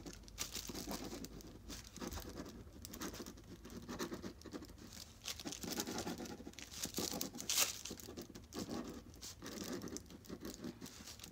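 Ballpoint pen writing on thin paper: faint, scratchy strokes in short uneven runs, with light rustling of the sheet.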